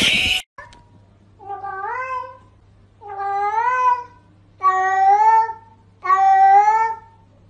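Domestic cat meowing four times, each meow about a second long and rising in pitch, getting louder from one to the next. A brief loud burst of noise at the very start.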